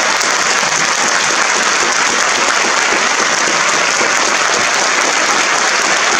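Theatre audience applauding steadily, a dense and even clapping throughout.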